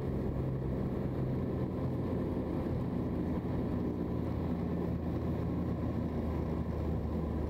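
Snowmobile engine running steadily as the sled drives slowly across the snow and comes up close.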